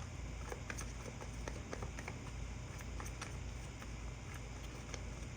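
Faint steady low hum with scattered small clicks and taps at irregular intervals.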